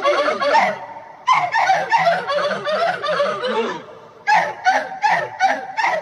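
Laughter in rapid runs of short 'ha-ha-ha' syllables, each run falling in pitch, with brief breaks about a second in and about four seconds in.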